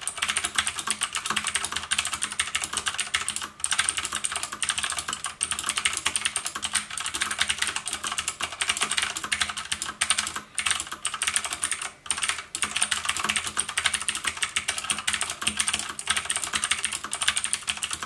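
Fast two-handed typing on a MOTOSPEED CK82 mechanical keyboard with blue switches: a loud, dense stream of sharp key clicks with a few brief breaks.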